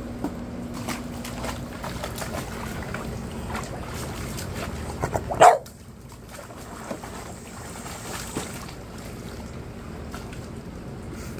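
A puppy splashing and pawing at the water in a plastic kiddie pool, with one loud dog bark about five and a half seconds in.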